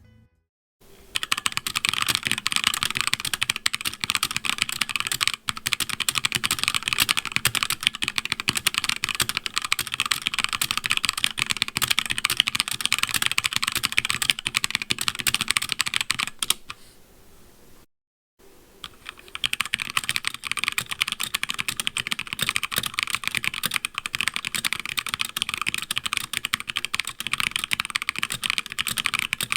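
Fast continuous typing on a HyperX Origins Core mechanical keyboard, a dense run of key clacks, first with its stock ABS keycaps. After a short break about two-thirds of the way through, the typing resumes with HyperX Pudding double-shot PBT keycaps fitted.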